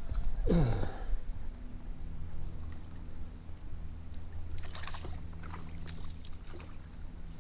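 A hooked trout splashing and thrashing at the surface close to the bank as it is played on a fly rod, in a cluster of sharp splashes about four and a half to six seconds in. Near the start, a brief whine falls quickly in pitch.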